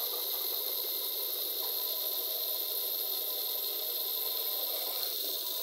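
Steady hissing background noise with a faint high-pitched whine running through it.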